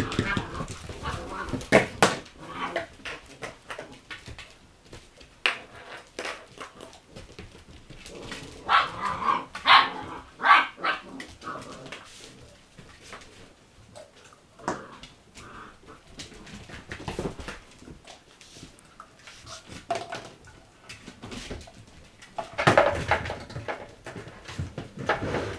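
Puppies at play, barking and yipping in short bouts, one bout about a third of the way in and another near the end, amid scattered sharp knocks and clicks.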